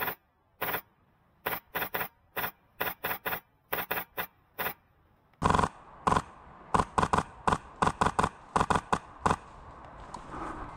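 Airsoft gun firing rapid single shots and short bursts, about two dozen in quick runs, with a short pause a little before the middle.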